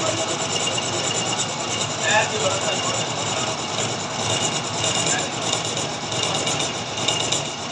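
Metal lathe running steadily with a continuous scraping, rubbing noise of work on the piece, over a high steady whine.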